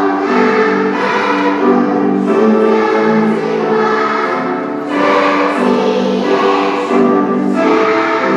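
A group of schoolchildren singing the school song together, in phrases of long held notes.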